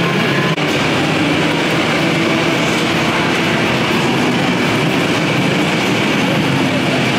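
Steady, loud din of a large indoor arcade and go-kart hall: machines and background noise merging into one even noise with a faint low hum, with no single event standing out.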